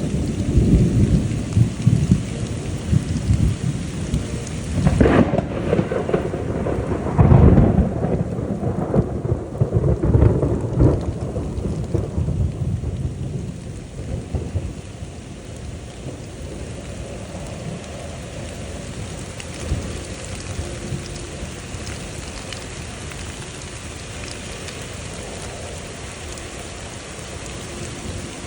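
Thunder rumbling and cracking over steady heavy rain, loudest about five and seven seconds in, then rolling away so that only the rain's steady hiss remains through the second half.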